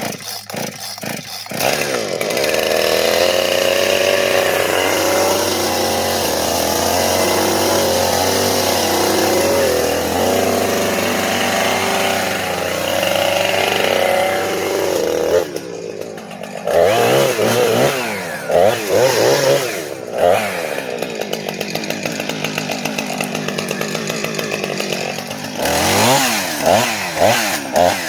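Gas chainsaw starting up, then running at high speed for about fifteen seconds. After a brief drop it is revved up and down several times, with a steadier, lower-speed stretch in between.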